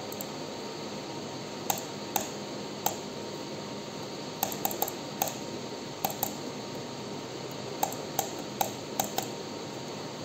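Scattered sharp clicks of a computer keyboard being tapped, some in quick runs of two or three, over a steady background hiss.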